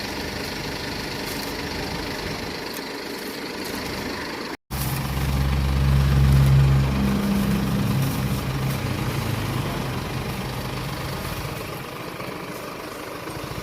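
Steady street background noise; after a short break about four and a half seconds in, a low vehicle engine sound swells loud and then slowly fades.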